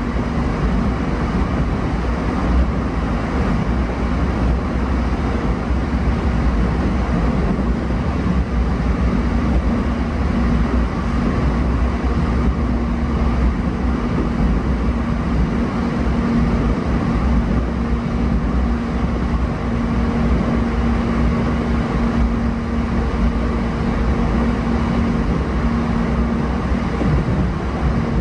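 Interior running noise of a JR East E233-7000 series electric train moving at steady speed: an even rumble of the wheels on the rails with a constant low hum.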